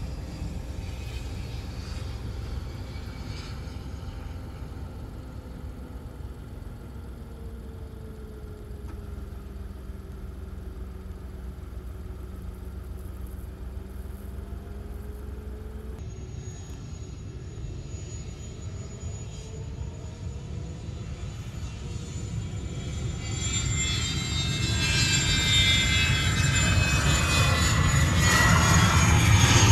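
Cessna Citation business jet's twin turbofan engines during the landing rollout: a steady low drone with hums that slowly fall and rise. About halfway the sound changes abruptly, then a high turbine whine builds and grows steadily louder as the jet rolls close by.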